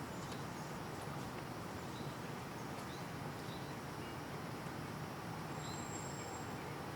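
Steady background noise with a few faint, short, high chirps scattered through it and one brief thin high whistle about five and a half seconds in.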